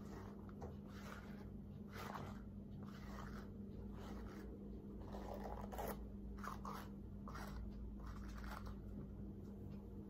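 Soft rustling strokes of fingers running through long, oiled hair, irregular and roughly one a second, with a busier stretch a little past the middle, over a steady low hum.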